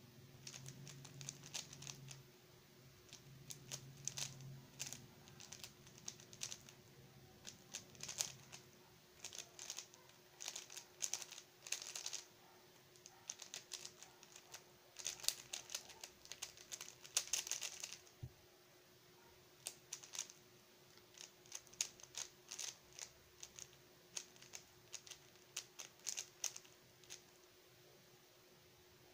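Stickerless 3x3 speed cube being turned fast, its plastic layers clacking in quick flurries broken by short pauses; the clicking stops a couple of seconds before the end.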